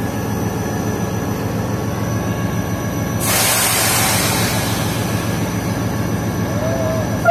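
Diesel-electric locomotive engine idling with a steady, pulsing low rumble. About three seconds in, a hiss of air sounds for roughly a second, as brake air is let out before departure.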